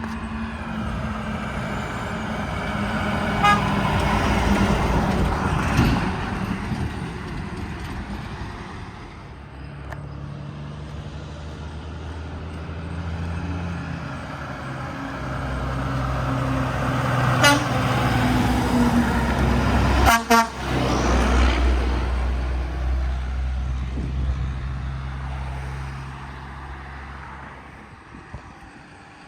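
Heavy trucks passing by on the road with their engines running, the traffic noise swelling and fading, and a few very short horn toots.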